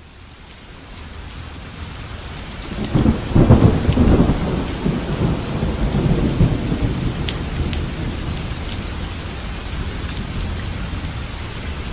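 Thunderstorm: steady rain fading in, with a long low thunder rumble that peaks about three to four seconds in and dies away into the rain.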